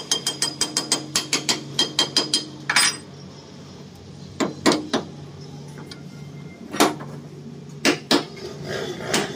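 Hammer striking the metal gearbox cover of a cutter machine to work the unbolted cover loose: a quick run of sharp metallic blows, about five a second for roughly three seconds, then a handful of single blows spread out later.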